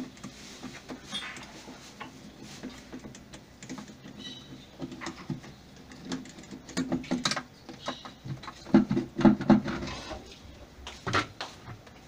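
Hollow plastic knocks, clunks and scrapes of washing-machine tub parts being handled and worked loose by hand, loudest and busiest in a cluster of knocks about eight to nine seconds in.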